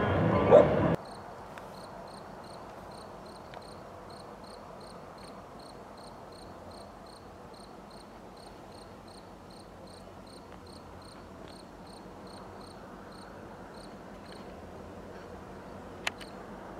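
A cricket chirping steadily, about three high chirps a second, over a faint background hush, with one sharp click near the end. This follows about a second of louder voices and music that cut off abruptly.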